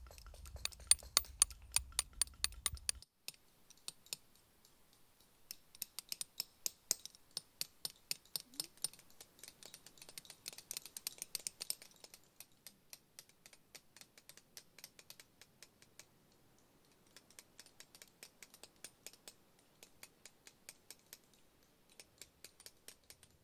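Hammer striking a chisel to cut letters into a stone: runs of sharp taps, about four a second, with pauses between the runs. The taps are loudest in the first few seconds and fainter afterwards.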